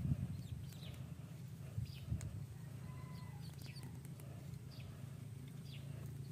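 A duckling peeping in short, high, falling calls about once a second, over a steady low hum.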